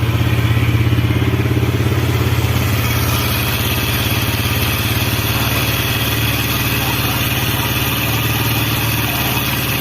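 Vehicle engine running at a steady idle, with a slight change in its tone about three seconds in.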